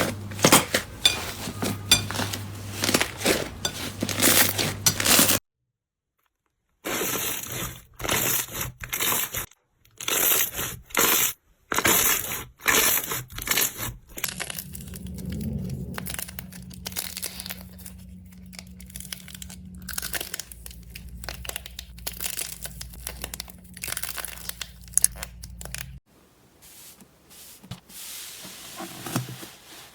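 Slime being squeezed, poked and pressed by hand, with dense crackling, popping and crunching. The sound changes from one short clip to the next, with a brief silent gap about six seconds in.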